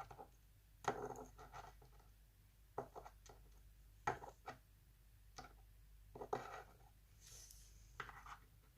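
Faint, irregular small taps and scrapes, about half a dozen, as the pins from a gutted mortise lock cylinder are moved about and laid out on a surface.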